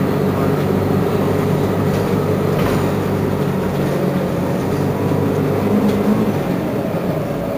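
Engine of a Mercedes-Benz Citaro G C2 articulated bus idling, a steady low drone that swells slightly about six seconds in.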